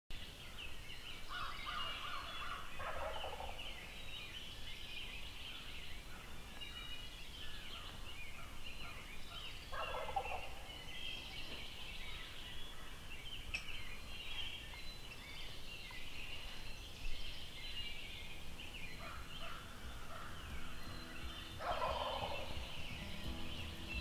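A wild Rio Grande turkey gobbler gobbles three times: about a second in, about ten seconds in, and near the end. Each gobble is a quick rattle falling in pitch. Small birds twitter steadily throughout.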